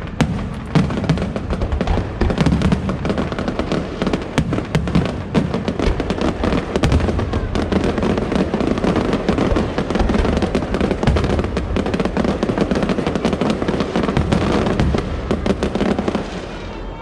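Fireworks going off in a dense barrage, with a steady stream of rapid crackles and bangs, and show music underneath. The barrage dies down near the end.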